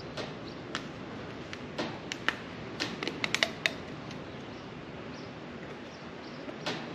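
Scattered light clicks and ticks from handling a new spin-on oil filter by hand, with a cluster of them a couple of seconds in, over a steady faint background hiss.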